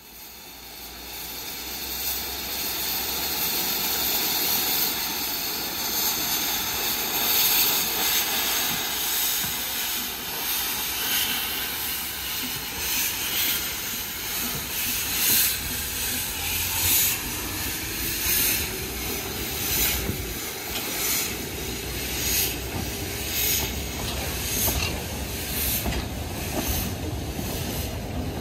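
Talyllyn Railway No. 7 'Tom Rolt', a narrow-gauge steam tank locomotive, pulling away with its train: a loud hiss of steam from the open cylinder drain cocks builds over the first few seconds. Then its exhaust chuffs come through as regular beats as the carriages roll past.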